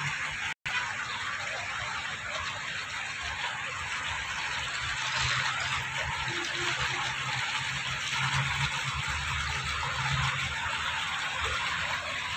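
Steady rushing water noise, with a low hum joining in about four seconds in and fading near the end.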